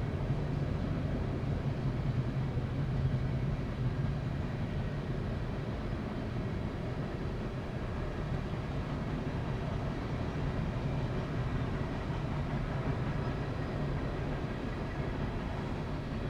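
Freight cars of a CSX train rolling steadily past at a grade crossing: a continuous noise of steel wheels on rail, strongest in the low range.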